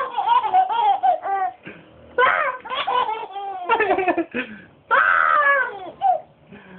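Baby giggling and laughing in about four high-pitched bursts with short pauses between.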